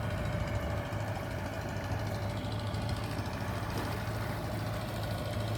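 Boat engine running steadily: an even low hum with a fainter higher tone above it.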